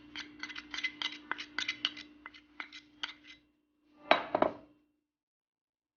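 A metal spoon clicking and scraping against a mixing bowl, about three or four quick clicks a second, while marinade ingredients are added to chicken strips. The clicks die away, and a louder short clatter follows near the end.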